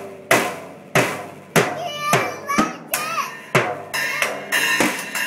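A small drum kit hit with sticks: loud drum strikes about twice a second, with cymbal ringing between them.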